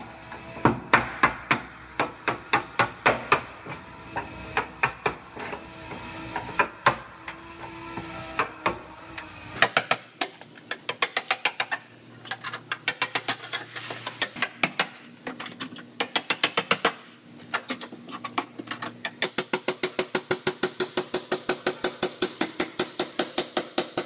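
Hand hammer striking a steel chisel driven into the seams of a car's rear body panel to split it off. Sharp metallic strikes, spaced out at first, then in quick runs of about four a second from about halfway in, over background music.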